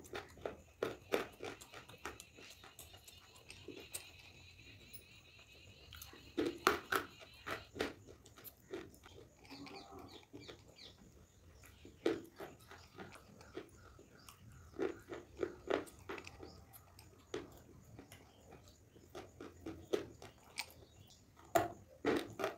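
Slate pencils and shale stone being bitten and chewed close to the microphone: bursts of sharp, gritty crunches every few seconds, with quieter chewing between.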